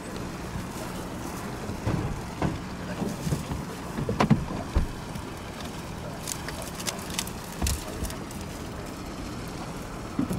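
Outdoor ambience: wind on the microphone over a low steady hum, with scattered short rustles and taps, the loudest about four seconds in.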